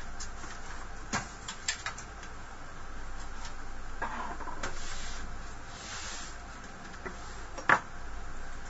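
Scattered light clicks, knocks and scraping of desktop computer parts being handled during disassembly, with one sharper click a little before the end.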